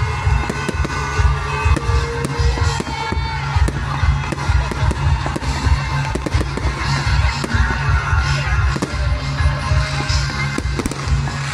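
Fireworks going off in many quick bangs and crackles, over loud music.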